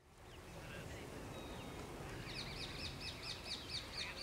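Outdoor ambience fading in over a steady low background noise. About halfway in, a bird starts calling a fast run of repeated high chirping notes, about four or five a second.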